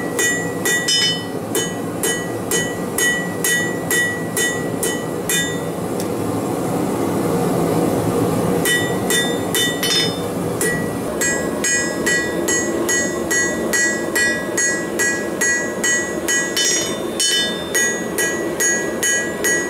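Hand hammer striking a red-hot steel bar on a steel anvil, about two to three blows a second, each blow leaving a clear, bell-like anvil ring. The hammering stops for about three seconds midway, then resumes at a slightly quicker pace over a steady rushing noise.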